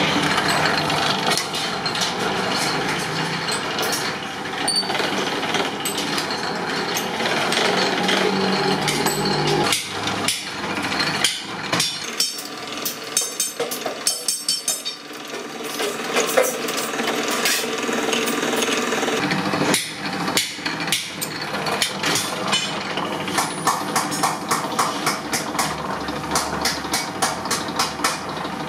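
Sheet-metal workshop noise: galvanised iron sheet being worked through a rotary flanging machine, with sharp metallic hammer-like knocks that come several a second in the later part.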